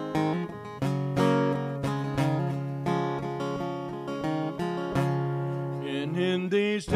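Steel-string acoustic guitar strumming chords as the introduction to a song, about one stroke a second, each chord left to ring.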